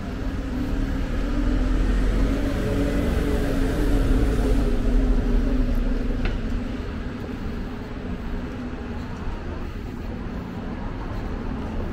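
Road traffic with a motor vehicle's engine passing close, loudest between about two and five seconds in, then easing back into steady traffic noise.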